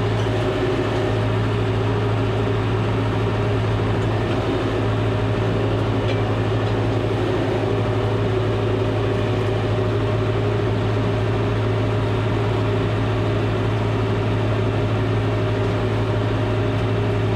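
John Deere 5085M tractor's diesel engine running at a steady speed, an unbroken deep drone, while the tractor backs up.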